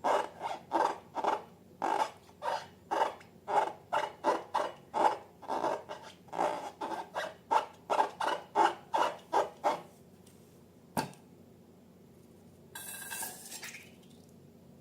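Slime squelching as it is squeezed and kneaded by hand, a quick run of short, wet squishes about two or three a second. It stops about two-thirds of the way in, followed by a single click and a brief hiss near the end.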